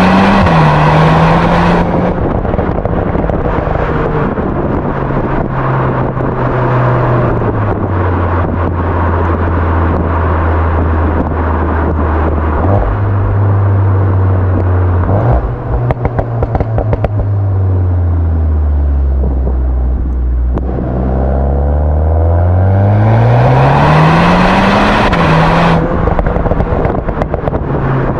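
Volkswagen Golf 8 R's turbocharged 2.0-litre four-cylinder through an Akrapovič exhaust in Race mode: a hard pull ends in a quick upshift, then it runs through several lower-pitched gear changes and a short run of crackles on lift-off about halfway through. It slows with falling pitch, then accelerates hard again with a steeply rising note and a sharp upshift near the end.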